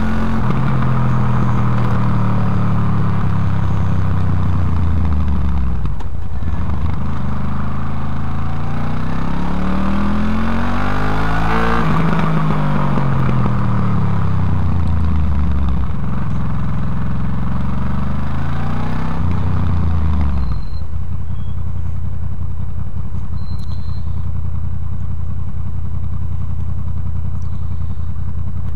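A 2008 Honda VFR800's V4 engine heard through its stock exhaust from a microphone close to the silencer, revving up and down as the bike accelerates and slows through the gears. About twenty seconds in it drops to a steady idle for the rest of the time.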